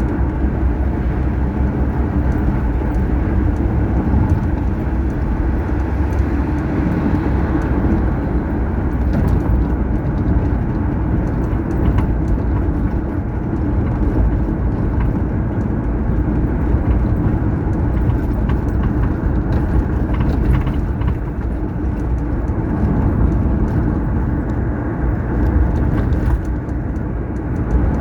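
A car driving at highway speed: steady engine and tyre noise, a continuous low rumble.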